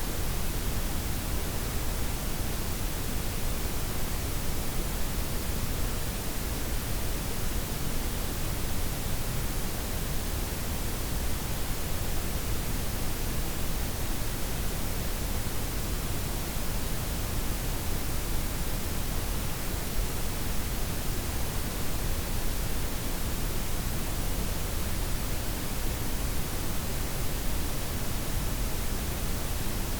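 Synthetic blended white, pink and brown noise: a steady, even hiss across the whole range with a full low rumble underneath and no changes.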